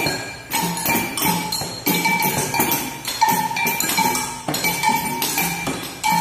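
A children's hand-percussion group playing together in a steady beat, a little under two strokes a second: a ringing metal bell on each stroke, with jingles on top.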